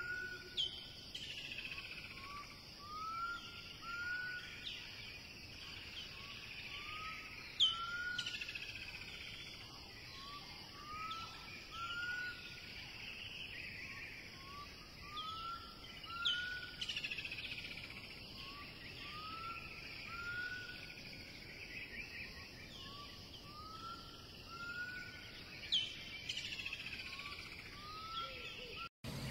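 Birds calling throughout, with short rising chirps often in pairs and quick falling whistles now and then, over a steady high hiss of insects.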